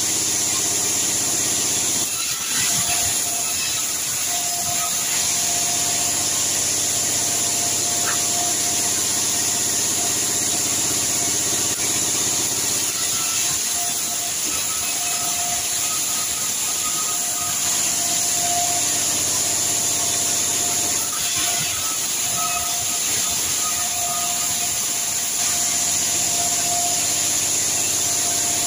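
Sawmill band saw running and cutting red sengon timber into boards: a steady hiss with a wavering whine over it.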